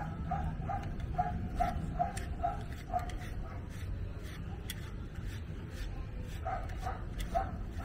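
A rubber grooming brush stroking through a French bulldog's short coat. Over it runs a series of short, evenly spaced animal calls, about three a second, during the first three seconds and again near the end.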